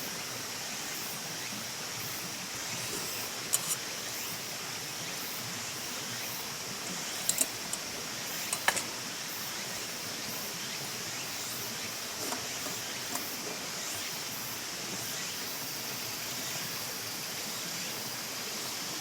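Steady, even outdoor background hiss with a few light, sharp clicks and taps in the first half.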